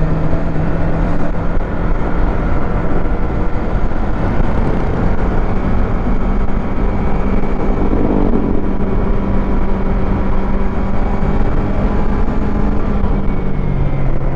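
Yamaha MT-25's parallel-twin engine running at a steady cruise, heard from the rider's seat with wind and road rumble on the helmet microphone. Its pitch bends briefly about eight seconds in.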